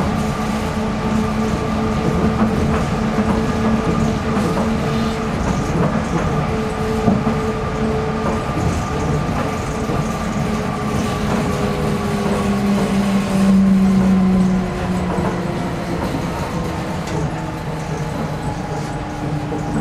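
Toei 300-series rubber-tyred automated guideway train running, heard from inside the car: a steady rolling rumble with the electric drive's whine on several tones. About two-thirds of the way in the whine briefly swells, then its pitch slides slowly down as the train slows.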